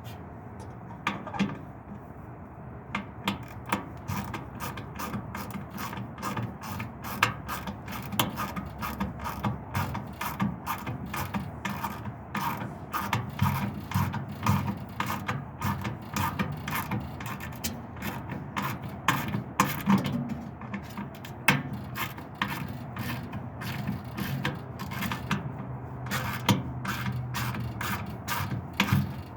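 Small micro ratchet clicking as it drives a screw, in runs of quick strokes with short pauses between them.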